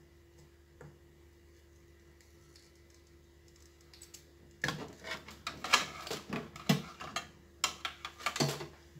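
A quiet stretch, then from about halfway through a rapid run of sharp clicks and clatter: a spring-loaded desoldering pump being fired and re-cocked while desoldering a component from a TV power supply board, with the board being handled.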